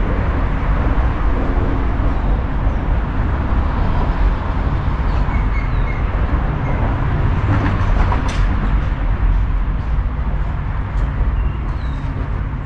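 Steady rumble of road traffic crossing the concrete bridge overhead, heard from underneath the deck.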